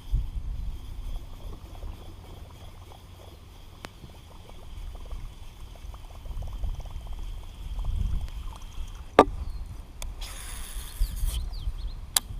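Water lapping and sloshing around a small fishing boat over a low rumble, with two sharp clicks and a brief hiss late on. Faint bird chirps come in near the end.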